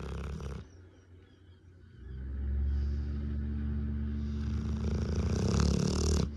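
A Rottweiler snoring in her sleep: the end of one snore, a pause of over a second, then one long, low snore of about four seconds that stops abruptly near the end.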